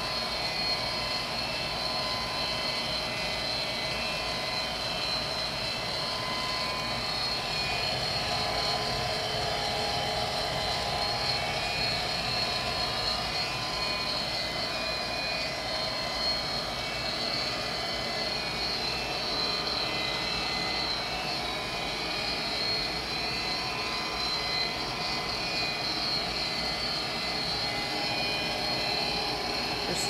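Vintage Armstrong gas furnace running steadily: its draft inducer motor and blower fan make a constant whirring hum with a steady high whine.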